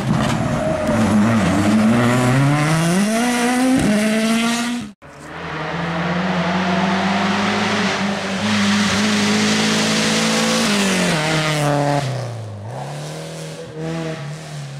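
Rally car engine at high revs, climbing in pitch as it accelerates, with a short dip in pitch about four seconds in. The sound cuts off abruptly near five seconds. A second stretch of rally car engine follows, falling in pitch around eleven seconds in and rising again near the end.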